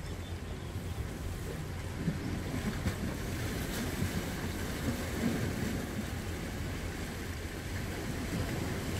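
Wind blowing across the microphone over small sea waves washing against shoreline rocks, with a few faint knocks.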